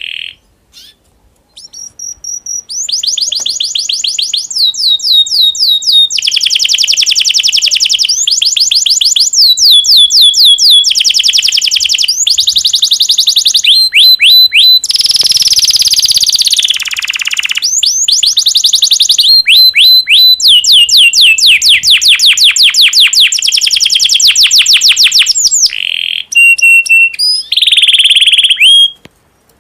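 Domestic canary in breeding condition singing: fast trills of repeated falling notes, phrase after phrase with short breaks. About halfway there is a harsher, rattling passage.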